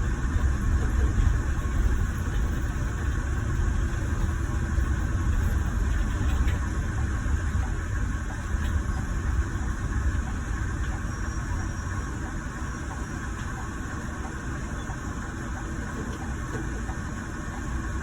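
Scania Irizar i6 coach's diesel engine running, heard from inside the passenger cabin as a steady low rumble with cabin and road noise, easing a little in the last few seconds.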